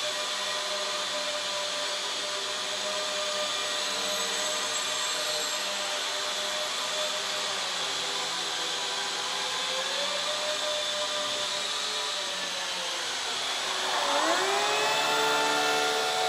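Electric motor and propeller of a small indoor shock-flyer model plane whining steadily in flight. About fourteen seconds in, the pitch dips and then climbs higher and louder as the throttle is opened.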